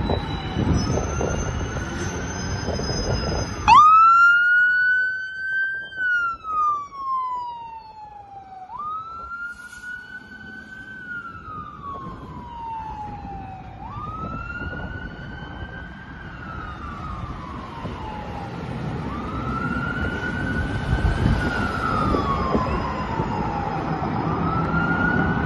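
Fire engine's siren in wail mode, starting abruptly about four seconds in over a low rumble of engine and wind, then rising quickly and falling slowly in repeated cycles of about five seconds. It is loudest at first and softer afterwards as the truck pulls away.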